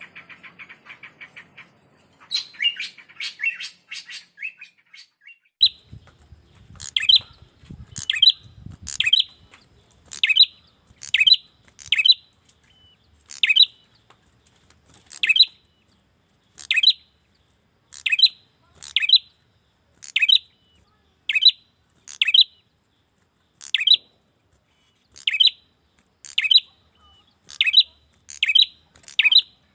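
Male prenjak calling. It opens with a rapid run of high chips and a short burst of chatter, then repeats a sharp, downward-sweeping call note about once a second, sometimes in quick pairs.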